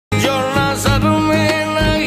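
Music: a male voice singing a long, wavering Urdu line over low instrumental accompaniment, starting a moment in.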